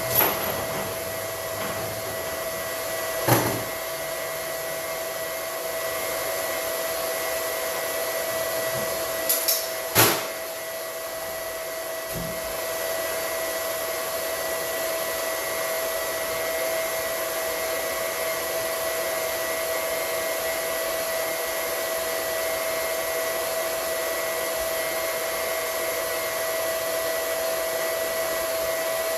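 A small electric motor running steadily with a constant whine, with a few short knocks of tools or metal about 3 and 10 seconds in.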